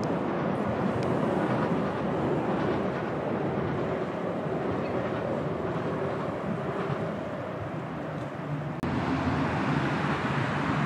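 Steady outdoor city noise dominated by a low traffic rumble, with a sudden brief dropout near the end before it carries on.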